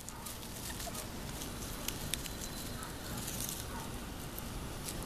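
Light crackling and rustling of dry leaves and grass as puppies' paws move over them, a scatter of small irregular clicks.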